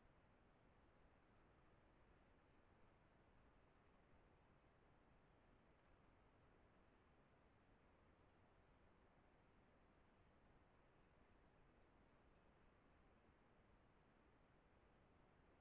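Faint forest insect sounds: a steady high-pitched drone, with three runs of rapid, even chirps at about four a second.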